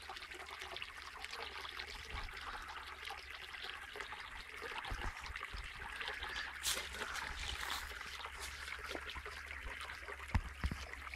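A small, shallow brook trickling and babbling over stones: a steady, fairly faint water sound, the stream now running low with little water. A brief thump about ten seconds in.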